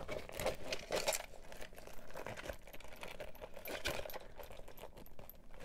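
Handling noise from two Louis Vuitton coated-canvas pouches: quick, irregular clicks and rustles as the Mini Pochette, on its gold chain, is slid into the open zippered Pochette Accessoires.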